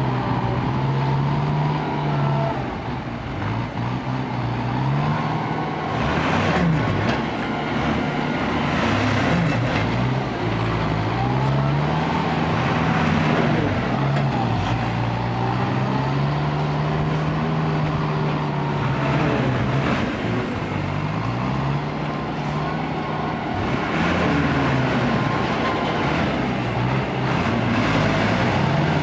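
Diesel engine of a Mitsubishi Fuso ten-wheel dump truck running under load, its pitch rising and falling repeatedly as it revs, with a few short air hisses.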